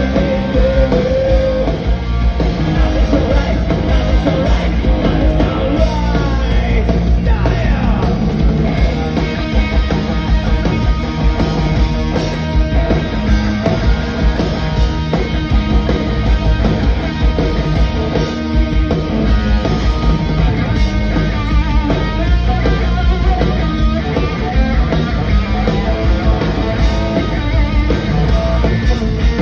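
Live punk-rock band playing loud: electric guitars, bass guitar and drums.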